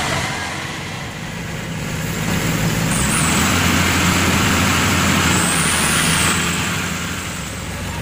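Maxxi Bimo 102 combine harvester's diesel engine and machinery running loud, growing louder about two seconds in and easing off near the end, with a faint high whine over it.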